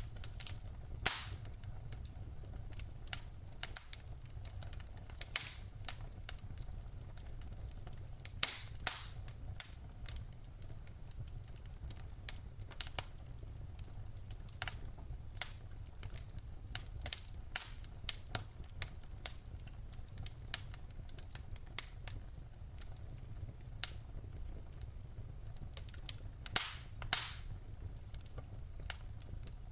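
Wood fire crackling in a fireplace: irregular sharp pops and snaps, with a few louder pops about a second in, around nine seconds and near the end, over a low steady rumble.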